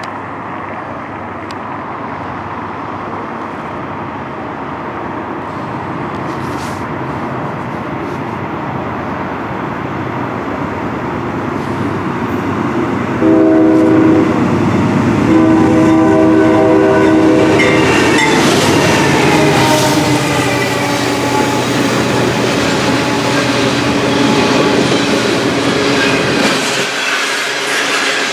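CN freight train approaching, its rumble growing steadily louder; about 13 s in the locomotive's air horn sounds a short blast, then a long blast, whose pitch drops as the locomotives pass. Wheels clatter on the rails as the cars follow.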